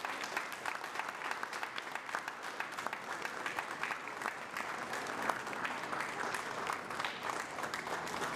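Audience applauding: many hands clapping steadily in a hall.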